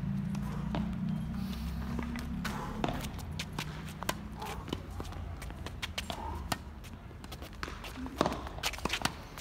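Tennis balls being struck with racquets and bouncing on the hard court, a scattered series of sharp pops and knocks, along with the squeak and patter of players' shoes. A steady low hum sounds under them for the first three seconds or so, then fades.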